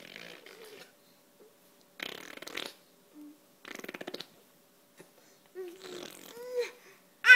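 A baby blowing raspberries with her mouth pressed against an adult's bare forearm: a short buzz about two seconds in and a fast fluttering one about four seconds in, followed by small voiced baby sounds and a loud squeal at the very end.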